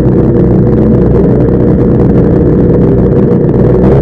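Bickle Built Outlaw 600 race car's engine idling steadily while stationary, heard loud from the cockpit.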